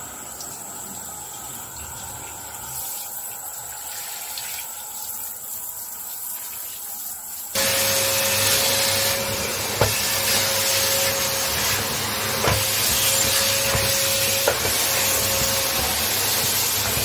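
A softer hissing noise, then about halfway through a water-filter vacuum cleaner's motor starts suddenly and runs loud and steady with a constant whine, with three short knocks.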